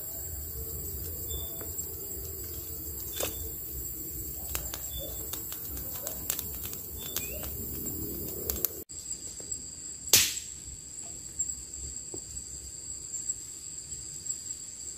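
Woodland ambience: a steady high insect drone with short chirps repeating every second or so and scattered light clicks. A sudden change comes about nine seconds in, then one sharp crack.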